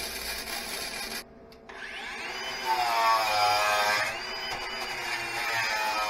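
Electric welding arc crackling on steel for about a second, then after a short pause an angle grinder fitted with a wire wheel spins up with a rising whine and runs against the fresh weld, cleaning it between weld passes.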